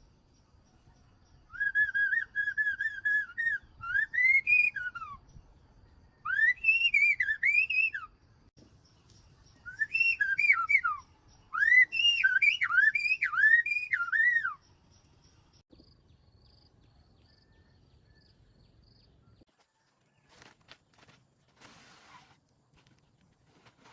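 A bird singing in four clear whistled phrases of quick, looping up-and-down notes, with short pauses between them. Then, in the last few seconds, faint rustling.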